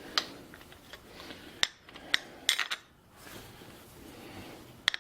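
Sharp metal clicks and clinks of a wrench on the wheel lock nut of a Makita angle grinder as the grinding wheel is tightened down against the held spindle lock: a few single clicks, with a quick cluster of them about two and a half seconds in.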